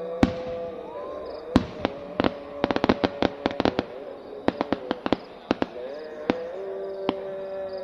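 Firecrackers and fireworks going off in an irregular string of sharp bangs, with two quick rattling clusters of cracks in the middle.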